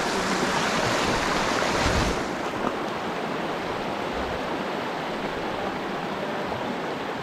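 Shallow river rushing steadily over cobbles and riffles. It turns slightly duller about two seconds in.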